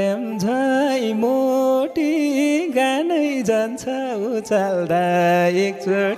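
A single voice singing a Nepali dohori line unaccompanied, drawing out long notes that bend and waver in pitch.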